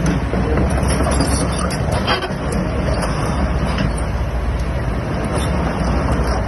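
Kobelco SK210LC hydraulic excavator's diesel engine running steadily, with a few short knocks.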